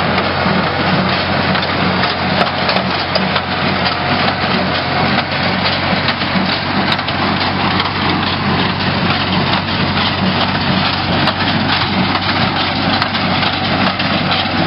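Farm tractor engine running steadily while pulling a small square hay baler, with a steady clatter from the baler at work.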